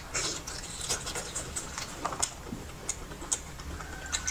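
A person chewing seafood: irregular sharp clicks and short crunches of eating, a few strokes a second.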